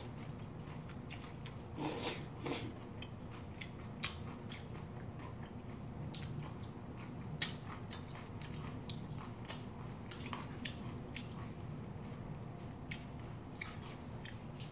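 A person eating cold noodles close to the microphone: a slurp of noodles about two seconds in, then steady chewing with wet mouth clicks and a few sharper clicks.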